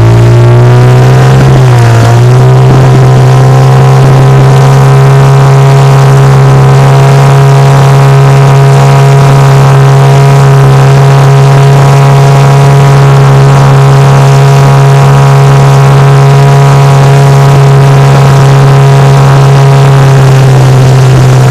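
Outboard motor of an inflatable boat running under way, loud and close. Its pitch shifts briefly in the first couple of seconds, then it holds a steady speed.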